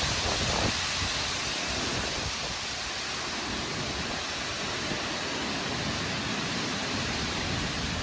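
Steady rushing noise of storm wind, with uneven low rumbling from gusts buffeting the microphone.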